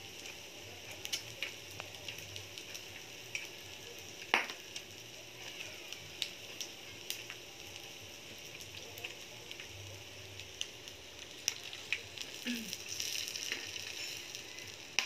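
Meat slices sizzling on a Korean BBQ hot-pot grill: a steady crackling hiss with scattered pops and clicks, one sharper click about four seconds in.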